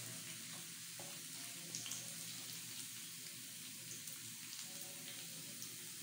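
Sliced red onions frying in hot oil in a pan: a faint, steady sizzle with a few light crackles.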